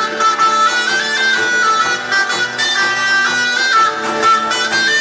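Pastellessa music from a bottari group: a melody of held notes stepping up and down over a steady low drone.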